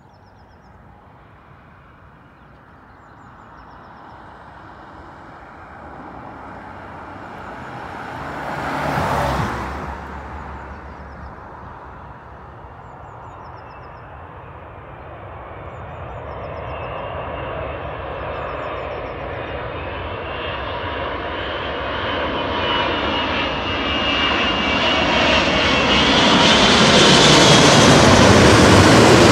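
Four-engined Airbus A380 airliner on final approach, its engine noise growing steadily louder with a high whine as it comes in low and passes overhead near the end. About nine seconds in, a brief separate swell of noise rises and fades.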